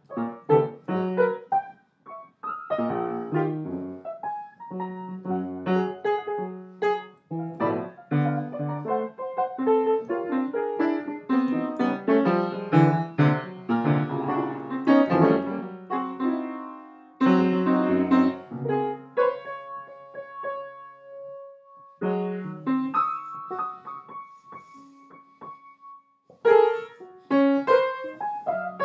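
Piano playing: struck chords and quick runs, thinning past the middle to a few held notes, then picking up again near the end.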